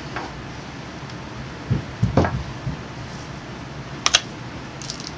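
Wooden knocks and thumps as a Les Paul neck, its glue joint softened by steam, is rocked and worked loose from the body: a cluster of low knocks about two seconds in and a sharp double click about four seconds in, over a steady hiss.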